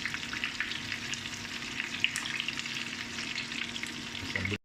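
Coated chicken pieces deep-frying in hot oil, a steady sizzle with a dense crackle of small pops and one sharper pop about two seconds in.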